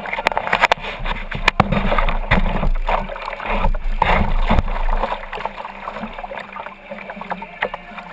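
Fast river water rushing through a riffle and splashing against a plastic kayak's hull, with many irregular sharp splashes and ticks; louder through the first five seconds, then easing as the water calms.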